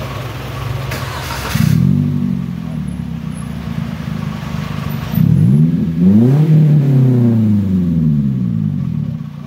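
Daihatsu Gran Max pickup's engine running through a newly fitted racing muffler. It idles, is blipped once about a second and a half in, then from about five seconds is revved in a few quick blips and a longer rev that rises and slowly falls back to idle. A brief hiss comes just before the first blip.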